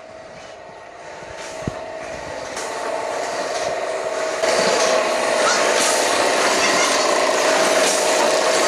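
Sack-making machines in a woven-bag factory running: a steady, dense mechanical noise with a constant hum, growing louder and becoming loud from about four and a half seconds in.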